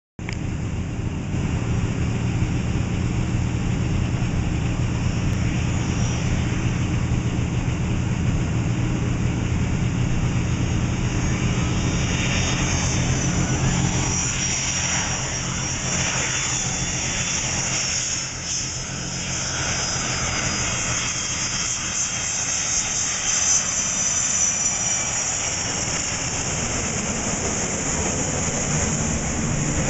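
Boeing 737 jet engines on approach: a high whine that strengthens and wavers from about halfway through, over a steady low rumble that thins out later on.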